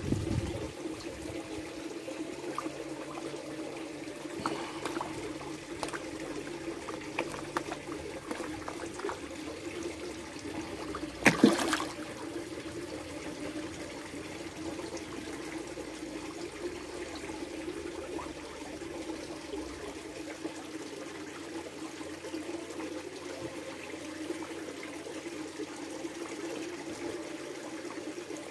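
Pond water trickling and lapping at the surface, with one short, louder splash about eleven seconds in.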